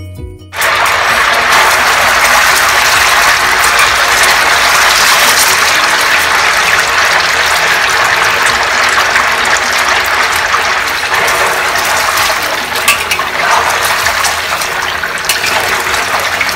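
Egg tofu pieces deep-frying in hot oil in a wok: a loud, steady sizzle of bubbling oil.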